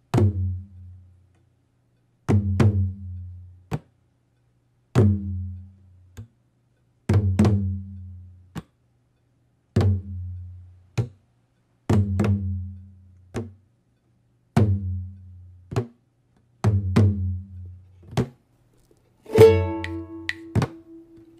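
Music: a deep drum struck at a slow, even beat about every two and a half seconds, each stroke followed a little over a second later by a sharp wooden knock. Plucked string chords come in near the end.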